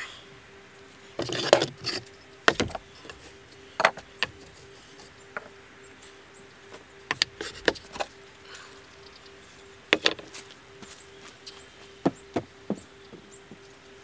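Scattered light knocks and clatters of cut wooden discs and thin sheet-metal pieces being picked up and set down on a wooden work table. A faint steady tone hums underneath.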